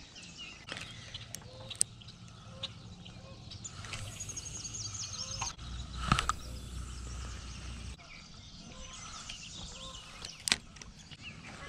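Birds chirping, with a fast trill of repeated high notes about four seconds in. A few sharp clicks are heard, the loudest about six seconds in and again near the end, with a low rumble around the louder click.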